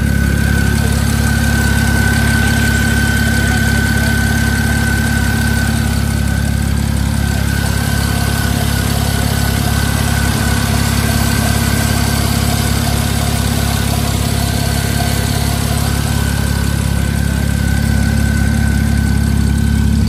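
BMW 335i's turbocharged inline-six engine idling steadily, with a steady high-pitched whine over the low engine hum.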